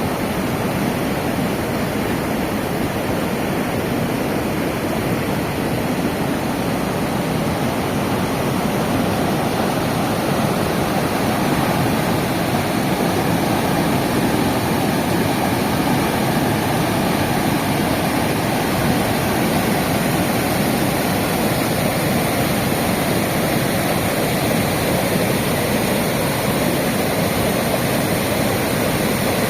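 Steady rush of a river's flowing water, a dense, even noise with no breaks.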